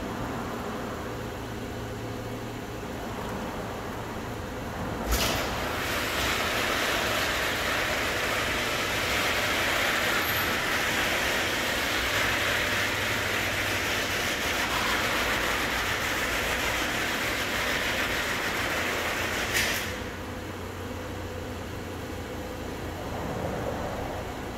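Overhead Door perforated rolling steel door opening under its RHX-H operator. It starts with a clunk about five seconds in, runs with a steady clatter as the curtain rolls up for about fifteen seconds, and stops with a second clunk.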